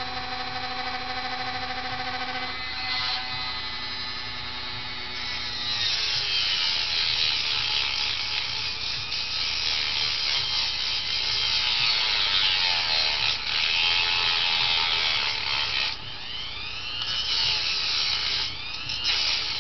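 Handheld rotary tool with a cut-off wheel, cutting a long metal screw down to length. The motor runs with a steady whine at first, then from about six seconds in the wheel grinds into the screw with a harsh, hissing grind. It eases off briefly about sixteen seconds in and resumes with its pitch wavering under load.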